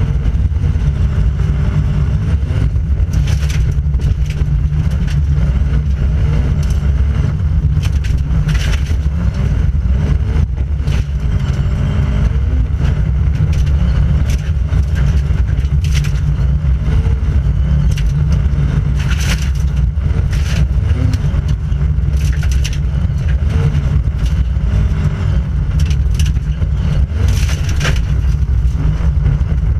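Volvo 940 Group H rally car driven flat out on a gravel stage, heard from inside the stripped cabin: a loud, steady engine and drivetrain note over deep road rumble. Sharp clatters of gravel striking the underbody and wheel arches break through several times.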